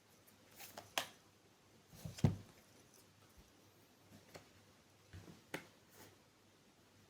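A few soft, separate clicks and taps: one about a second in, a stronger, duller tap a little after two seconds, and two more near the end, over a faint steady hum.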